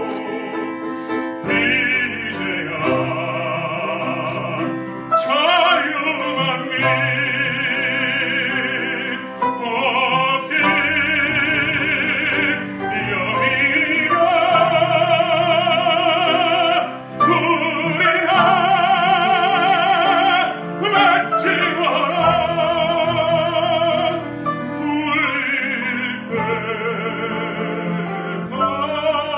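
A man singing in an operatic style with piano accompaniment: long held notes with wide vibrato, broken by brief pauses for breath every few seconds.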